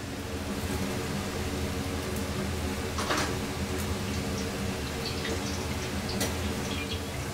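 Steady low hum of a restaurant kitchen's gas wok range and ventilation, with a brief clatter about three seconds in and a few faint ticks later.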